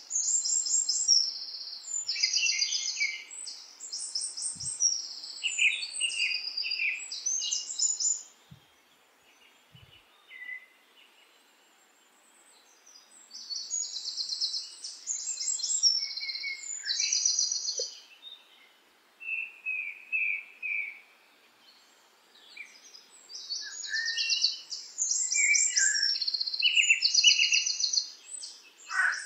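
Several small birds chirping and singing in quick, high-pitched trills that overlap one another, with a couple of short lulls between bouts.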